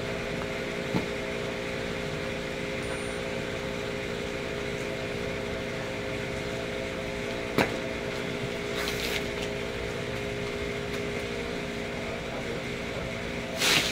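Steady machine hum made of several held tones, with a sharp knock about seven and a half seconds in and brief rustling a second later and again near the end.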